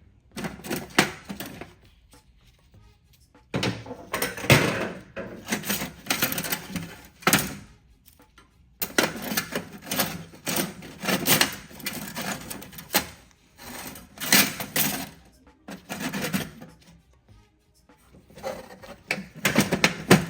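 Old metal hand tools clinking, scraping and knocking against each other and against the inside of a rusty metal tool box as they are rummaged through and picked out. The clatter comes in bunches, with a few short pauses.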